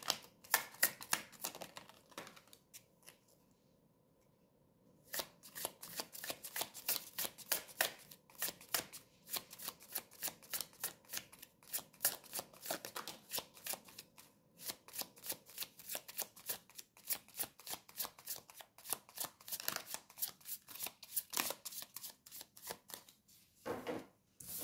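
A tarot deck being shuffled in the hands: a fast run of soft card-on-card flicks and slaps, several a second, that stops for a couple of seconds about two seconds in and then goes on.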